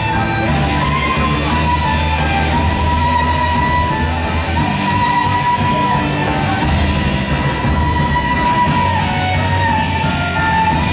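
Music with a steady beat: a long held melody line over bass.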